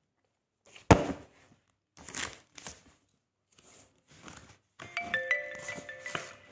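A sharp knock about a second in, then faint rustling. From about five seconds, a short run of ringing musical notes at several pitches that overlap and hang on.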